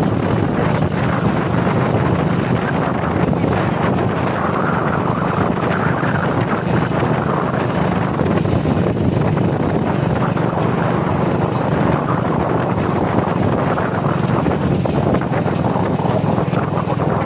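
A motor vehicle's engine running steadily, with wind rushing on the microphone.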